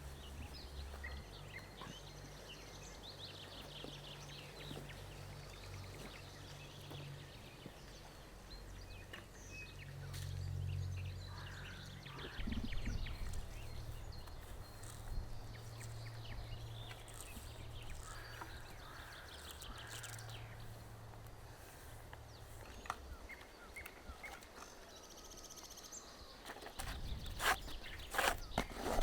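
Outdoor forest ambience with a low rumble, a few short bird chirps early on, and a run of sharp clicks or knocks near the end.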